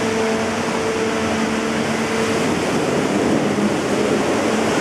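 Water rushing and churning in a boat ride's flume channel, with a steady low hum in the first half that fades out about halfway; the rushing grows a little louder after that as the boat nears the churning water at the lift.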